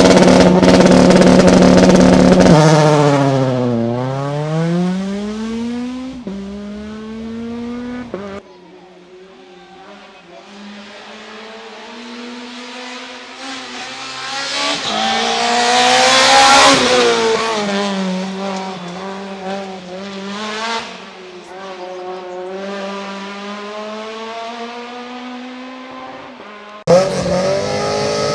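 Rally cars at full throttle on a closed-road stage, in several short takes. One car is very loud close by, then an engine note dips and climbs again. Another car approaches, passes loudest about halfway through and fades into the distance. A third car bursts in loud near the end.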